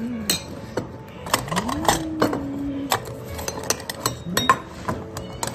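Spoon and dishes clinking and clattering as cat food is dished out onto plates, in a string of sharp knocks, with a few low drawn-out tones that rise and fall between them.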